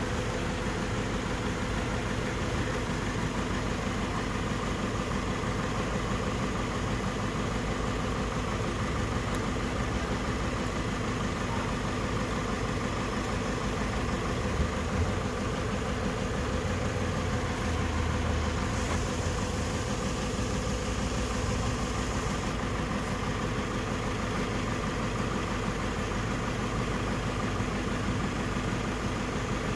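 Toyota 2TR four-cylinder petrol engine idling steadily. There is a single short click about halfway through, and a few seconds of extra hiss and low rumble a little later.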